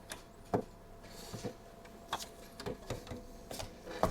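Irregular light clicks and knocks, about five or six of them, with a brief rustle about a second in, from hands working on a PC build, handling parts and cables in the case.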